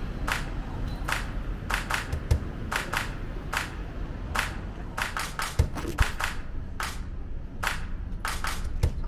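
Footsteps on hard paving and tiles: short scuffing steps at an uneven pace of about one or two a second, with a few duller thuds, over a low steady rumble.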